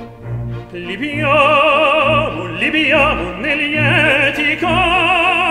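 Operatic aria: a solo voice with wide vibrato holds long notes over an orchestra, coming in about a second in after sustained orchestral chords.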